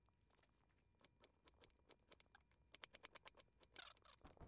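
Chef's knife dicing a red onion on a wooden cutting board: a run of quick knife taps that starts about a second in and comes fastest a little past the middle.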